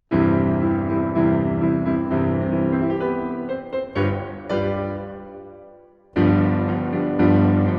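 Bösendorfer grand piano played in slow chords, struck about once a second. Around four and a half seconds in a chord is left ringing and dies away, then playing resumes about six seconds in.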